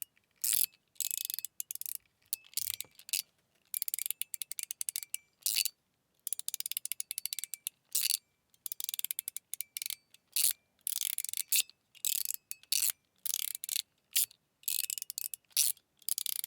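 Metal mechanical fidget slider being slid back and forth, its detents giving runs of rapid clicks, each stroke under a second or so, separated by short pauses, with a few single sharp clacks in between.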